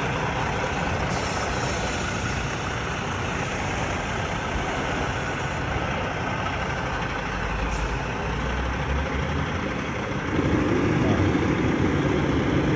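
Semi truck's diesel engine running steadily while the tractor-trailer backs up, getting louder about ten seconds in.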